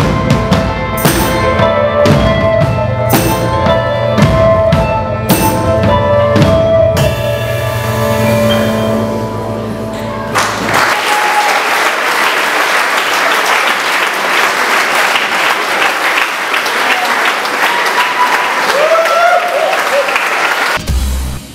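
A live band plays with a drum kit hit about once a second, then lets a held chord ring out. About ten seconds in, audience applause takes over and runs until shortly before the end.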